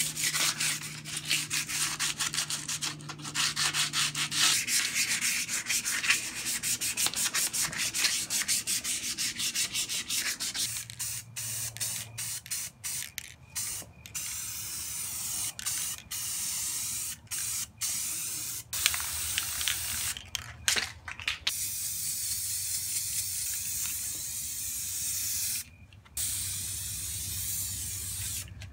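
220-grit sandpaper rubbed by hand over an alloy wheel in rapid back-and-forth strokes. About eleven seconds in this gives way to an aerosol spray can of gloss white enamel hissing in long bursts with brief pauses as the wheel is coated.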